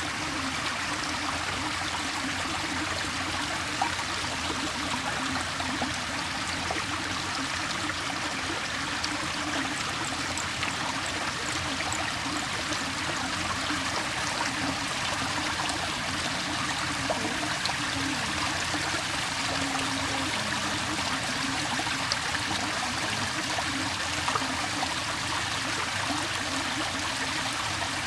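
Water flowing steadily, a continuous even rush with no breaks.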